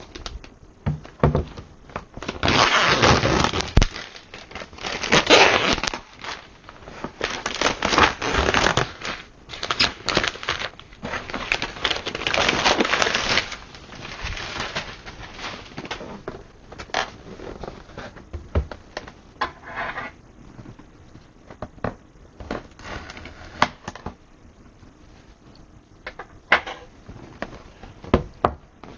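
Cardboard shipping box being opened by hand: tearing and crinkling of tape and cardboard in several long bursts through the first half, then lighter rustles and sharp knocks as the flaps and contents are handled.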